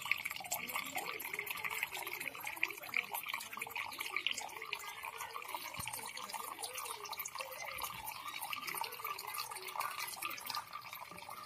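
A thin stream of liquid trickling steadily from the tip of a woven bamboo strainer basket into a metal bowl, with many small splashing drips.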